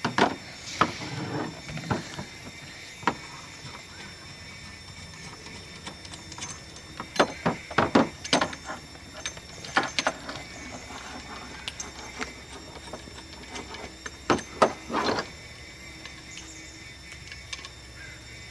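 Scattered knocks, clicks and clatters of tools and materials being handled, in bunches about seven to eight seconds in, around ten seconds and around fourteen to fifteen seconds in, over a faint steady background hum.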